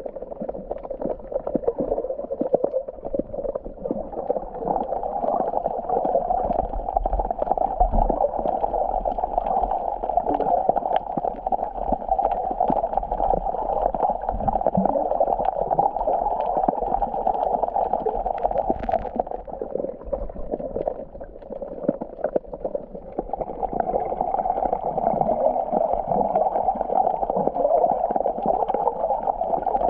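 Seawater gurgling and sloshing, heard muffled, with a brief lull about two-thirds of the way through.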